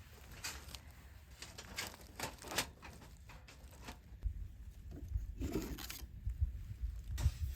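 Irregular rustling, scraping and tearing-like handling sounds, with a low rumble underneath and a louder cluster of strokes near the end.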